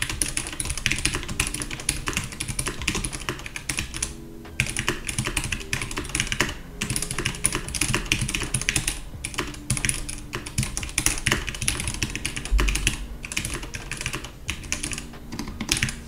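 Typing on a mechanical keyboard with stock, unlubricated Gateron Yellow linear switches: a fast, continuous run of keystroke clacks with a couple of brief pauses. The switches sound scratchy and loud, like 'just a bit of noise', a 'Cherry MX Blue in sheep's clothing', as untreated stock switches typically do before lubing.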